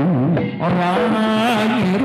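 Live Javanese jaranan music: a wavering, ornamented melody line that settles into a long held note about half a second in.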